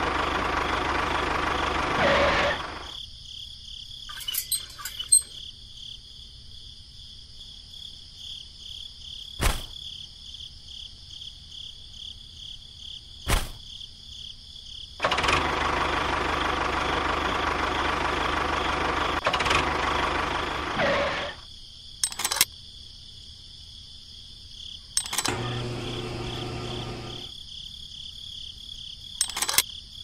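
Small electric motor of a homemade miniature model tractor running in spells, a steady whirring with a faint high whine, falling quiet in between. A few single sharp clicks come in the quiet stretches.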